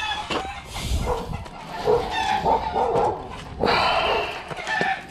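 Dogs barking repeatedly, in short separate barks.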